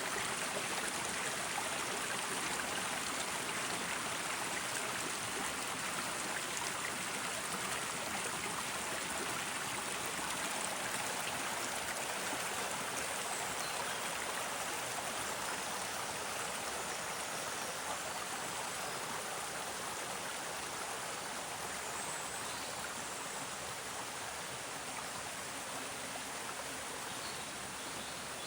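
Stream of running water, an even steady rush that fades a little near the end.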